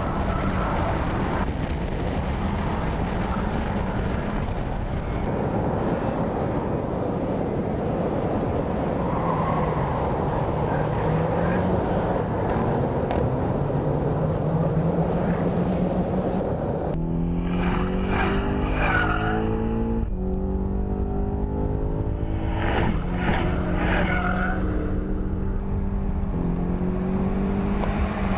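2015 BMW X6 M's twin-turbo V8 engine driven hard, with steady engine and road noise. In the second half the engine pitch repeatedly climbs under full acceleration and drops back at each upshift.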